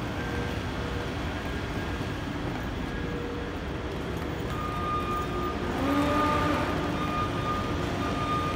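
Steady rumble of road traffic and vehicles moving through a concrete airport parking deck. From about halfway through, a thin steady high tone sits over it.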